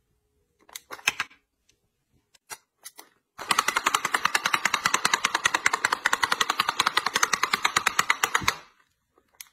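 Reusable pet-hair roller rolled back and forth over fabric, its ratchet clicking fast and evenly, about ten clicks a second, for about five seconds. A few single clicks come before the run.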